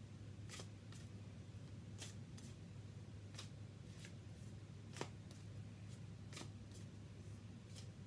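Deck of reading cards being shuffled by hand: faint, irregular flicks and snaps of the cards, a few sharper ones standing out, over a low steady hum.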